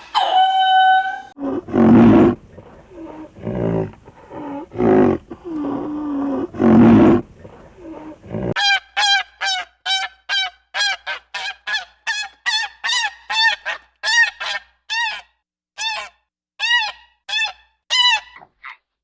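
Goose honking: a fast run of about twenty short, bending honks over the second half, after a few longer, lower calls.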